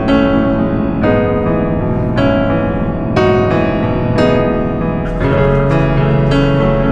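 Background music: a piano playing notes struck about once a second, each ringing out, with a fuller, sustained low note entering about five seconds in.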